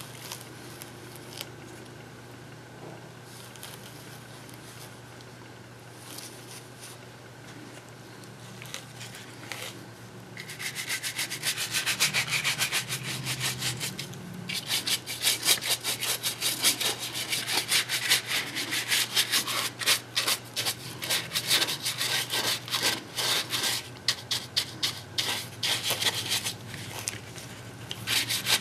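A stiff paintbrush scrubbing dry-brush strokes over a papier-mâché coconut shell built on a balloon, in rapid scratchy back-and-forth strokes that begin about ten seconds in and pause briefly a few seconds later. Before the brushing there is only a low steady hum.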